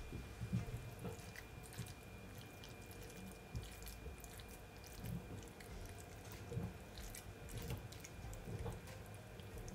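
Faint soft wet squelching and small clicks of fingers pressing callaloo and shrimp stuffing into a whole parrot fish in a glass baking dish.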